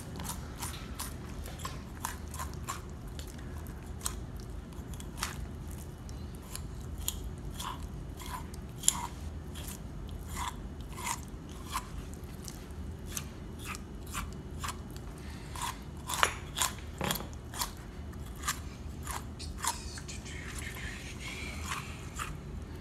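Buck knife cutting a fillet from a largemouth bass: irregular short crunching clicks as the blade works through the flesh and around the bones.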